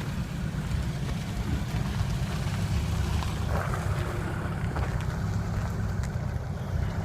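Steady low rumble of wind buffeting the microphone, mixed with vehicle noise from the road.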